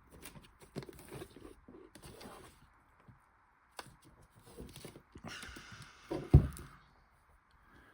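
Handling noises: objects being moved about, with scattered soft clicks and rustles and one loud thump a little after six seconds in.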